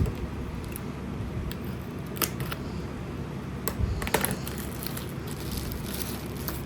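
Scattered sharp clicks and taps from packaging and parts being handled, over a low steady hum.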